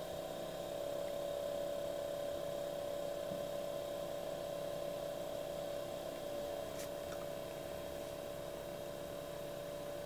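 Alpicool portable compressor fridge-freezer running with a steady hum, fitted with a replacement cooling fan; the noise that remains comes from parts other than the fan, which the owner puts down to the compressor. A small click about seven seconds in.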